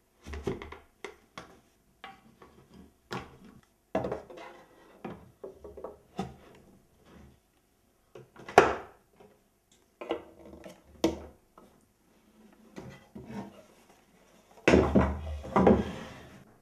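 Painted wooden parts of a toy rocking horse being handled and fitted together: a series of sharp wooden knocks and clacks, with a longer run of clattering near the end.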